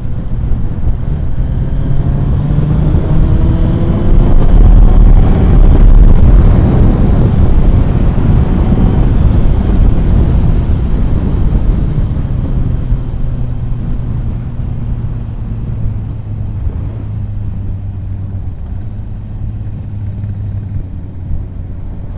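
Kawasaki ZX-9R's inline-four engine pulling hard under acceleration. It rises in pitch and is loudest about five seconds in, then eases to a steadier, quieter run.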